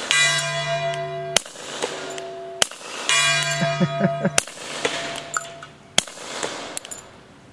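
An FNP-45 Tactical .45 ACP pistol with a SilencerCo Osprey suppressor, fired five times, about one shot every one and a half seconds. After the first and third shots a long metallic ring holds for over a second, as a struck steel target rings.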